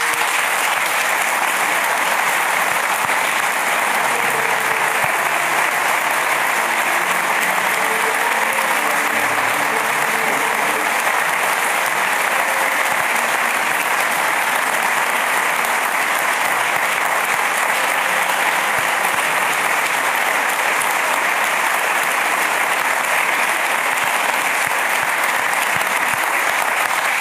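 Audience applauding steadily and at length; the clapping begins abruptly and stops near the end.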